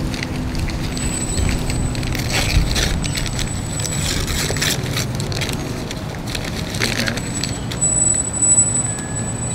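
Paper and foil kebab wrappers crinkling and rustling in bursts as they are unwrapped by hand, over a steady low background rumble.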